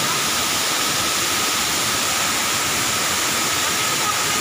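Waterfall rushing: a steady, even hiss of falling water with no breaks.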